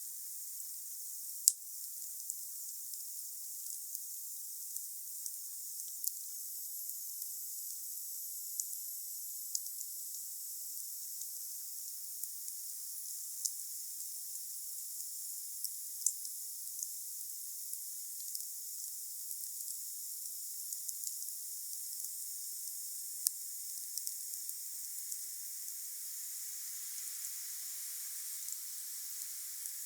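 Wood fire burning with a steady high hiss and scattered crackles, and one sharp, loud pop about a second and a half in.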